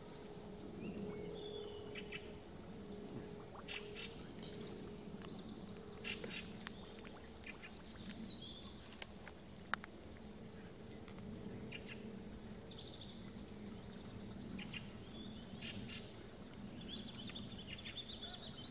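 Birds chirping and calling in short, high bursts over a faint steady hum, with two sharp clicks about nine to ten seconds in.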